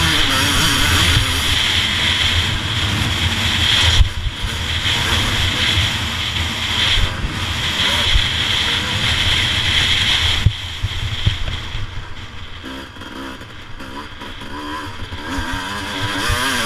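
Motocross bike engine revving and changing pitch as it is ridden hard, with wind rushing over the camera. The engine eases off about ten seconds in and runs quieter after that.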